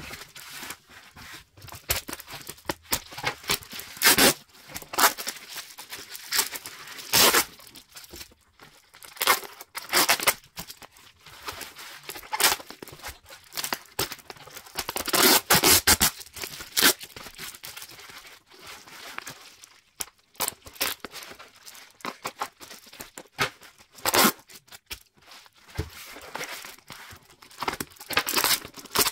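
Yellow packing tape being cut and ripped off bubble-wrapped parcels, with the bubble wrap crinkling: irregular spurts of tearing and rustling with short pauses between them.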